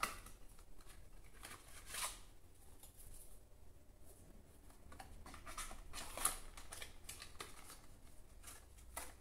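Faint handling sounds of small cosmetic packaging: a plastic squeeze tube and a small cardboard box turned over in the hands. Scattered soft clicks and rustles, the loudest about two seconds in and just after six seconds.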